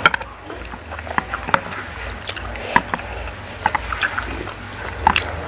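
Wooden chopsticks stirring and lifting Pop Mie instant noodles in broth in a white bowl: wet sloshing of the noodles with a dozen or so light clicks and taps scattered through.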